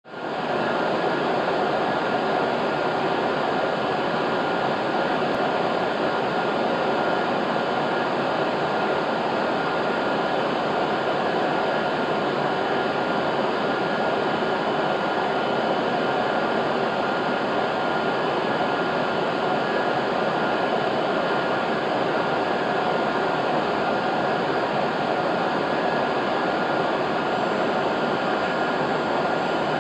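Steady hum of a Shinkansen station platform, a constant noise with a few faint high steady tones, holding one level throughout.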